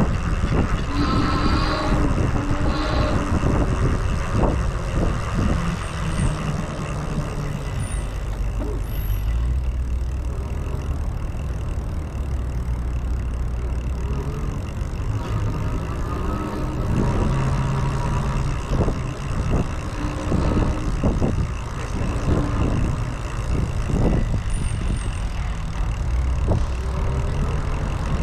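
Road noise from a moving RadRunner e-bike, with motor traffic around it: a steady low rumble with scattered short knocks, and brief higher tones about one and three seconds in.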